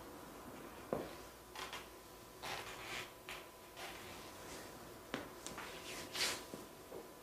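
Faint scattered rustles and light knocks, irregular and brief, with a faint steady high tone underneath.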